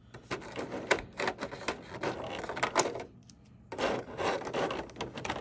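Clear plastic blister tray crackling and clicking as small figure parts are pried out of it, with a short lull about three seconds in.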